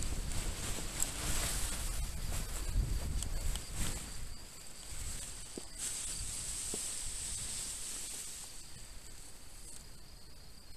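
Wind buffeting the helmet camera's microphone with rustling, strongest for the first few seconds and dying away after about four seconds. A faint steady high hiss remains.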